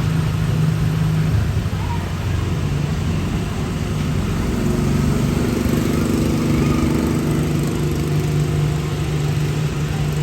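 Tomorrowland PeopleMover ride vehicle running along its track, a steady low mechanical hum. A second, higher hum joins about four seconds in and fades a few seconds later.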